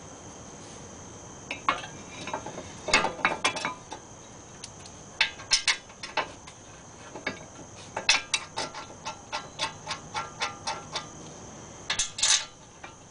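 Metal clinks and taps as a brake caliper bracket is handled against the disc rotor and its mounting bolts are fitted. The clicks come scattered and irregular, with a quicker run of light clicks in the second half.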